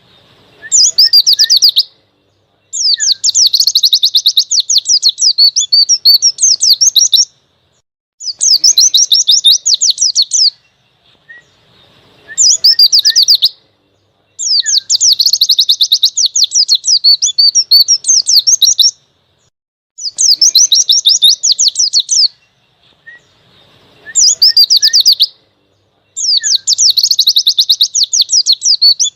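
White-eye (pleci) singing a long, fast 'ngalas' song: bursts of rapid high chirping notes, each burst lasting a couple of seconds or more, separated by short pauses. This is a tutor recording used to train captive white-eyes to sing.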